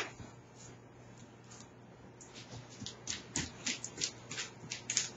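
Coonhound moving about on a hard vinyl floor, its nails and paws making light, irregular clicks and taps, a few a second, starting about two seconds in.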